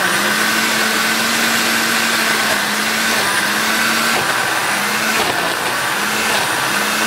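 Hamilton Beach smoothie blender's 650-watt motor running on its smoothie setting, its stainless steel blades churning a red frozen-fruit and juice mix in the plastic jar. A loud, steady motor whir whose hum dips briefly about once a second in the second half as the load shifts.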